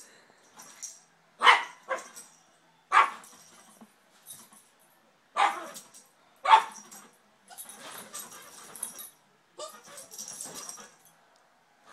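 Two Yorkshire terriers play-fighting: about five sharp, loud barks in the first half, then longer stretches of scuffling noise as they tussle.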